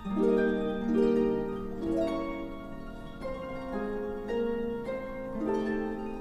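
Concert pedal harps playing a melody in plucked notes, several notes ringing together, with new notes coming about every half second to a second.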